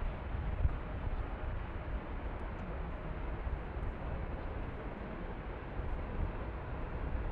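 Jet engines of a twin-engine widebody airliner at takeoff thrust during its takeoff roll, heard across the airfield as a steady low rumble with a hiss above it, growing slightly louder near the end as the jet rotates.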